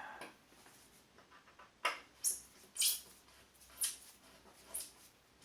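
About five short, sharp, high-pitched clicks, irregularly spaced, from a plastic motorcycle body cover being handled and worked off its mounts.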